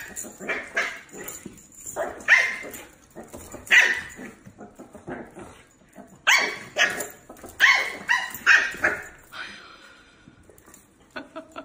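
Husky puppies barking and yipping in short, high-pitched barks that come in quick runs, fading toward the end.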